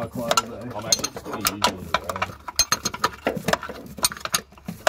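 Ratcheting spanner clicking in uneven runs as it winds a bolt in.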